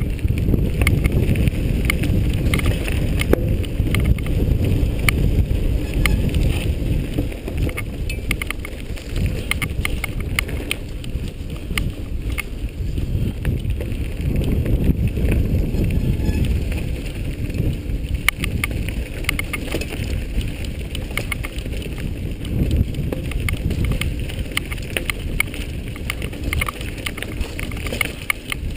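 Wind buffeting the microphone of a moving action camera, a steady low rumble, with many scattered clicks and knocks from the camera jolting along a rough dirt trail.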